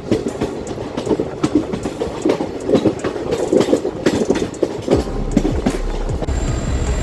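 Train wheels clattering over the rail joints in an irregular run of clicks and knocks; about five seconds in, a steady low rumble takes over.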